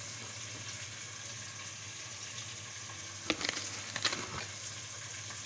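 Chicken and whole spices frying in oil in a pot: a steady, even sizzle, with a few light clicks a little past the middle.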